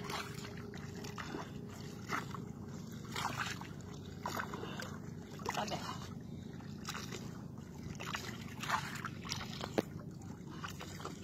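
Water sloshing and slapping irregularly against a boat's hull, about once a second, over a steady low hum.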